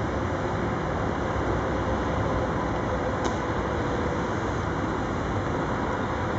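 Diesel locomotives hauling a train of loaded hopper wagons through a rail yard: a steady rumble of engines and rolling wagons with a faint hum, and a single sharp click about three seconds in.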